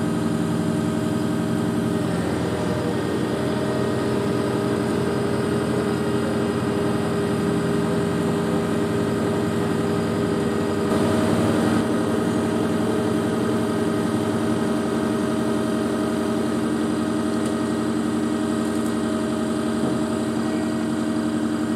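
Heavy diesel engine idling steadily at constant speed, likely the wheeled crane's engine powering its hydraulics while it lifts precast concrete elements. The engine briefly gets a little louder about halfway through.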